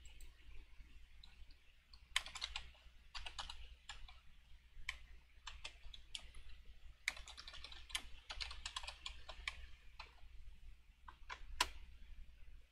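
Faint bursts of typing on a computer keyboard, scattered clicks in irregular clusters, the busiest run about seven to nine seconds in, over a low steady hum.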